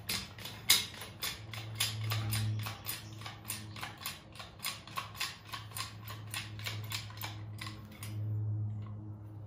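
Rapid, regular mechanical clicking, about three or four clicks a second, over a low steady hum; the clicking stops about eight seconds in.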